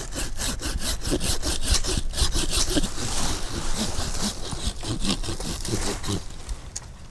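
Hand saw cutting through a small mulberry trunk at its base, with quick, even back-and-forth strokes. The strokes stop about six seconds in as the cut goes through and the tree tips over.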